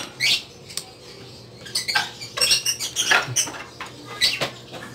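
Hard plastic clicking and scraping as the slats and pin linkage of an Isuzu Crosswind air-con vent louver are worked into their housing by hand and with a screwdriver. The clicks are short and irregular, thickest around the middle.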